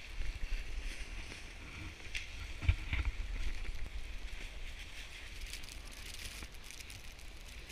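Snowboard sliding over snow with a steady hiss, and wind buffeting the action camera's microphone; one sharp knock a little under three seconds in.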